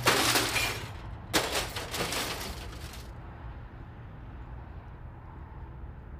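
Lorry colliding with a small car, heard through the lorry's dashcam: loud crashing noise that stops about a second in, a second burst of crashing about a second and a half in that lasts under two seconds, then the steady low rumble of the lorry driving on.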